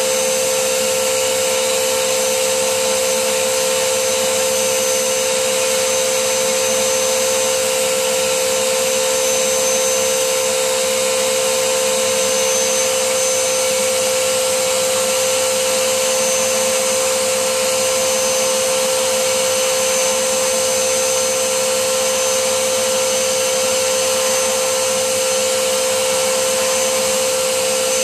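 Vacuum cleaner running steadily with a constant whine over the rush of air, its brush nozzle drawn over the open disc compartment of a PS3 Super Slim.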